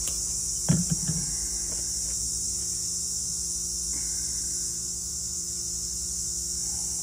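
Steady high-pitched chirring of insects, unbroken throughout. A few dull knocks come about a second in.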